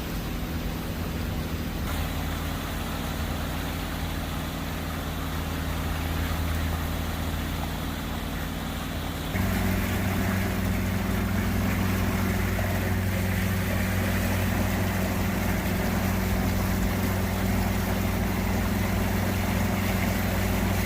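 Boat engine running steadily at a constant speed, with its tone shifting abruptly about two seconds in and becoming louder from about nine seconds in.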